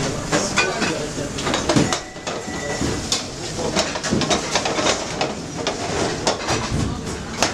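Busy professional kitchen during service: steel pots, pans, tongs and plates clinking and knocking over and over, with indistinct voices underneath.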